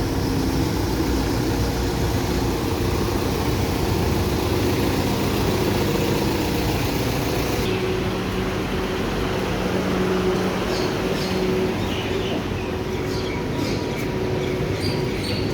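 Steady rumble of a moving vehicle with a low motor hum. About halfway through the high hiss drops away, and light high squeaks and clicks come in near the end.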